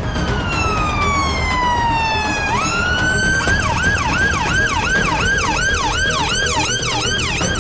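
Ambulance siren: a long wail falling slowly in pitch, a quick rise, then a fast yelp sweeping up and down about two to three times a second.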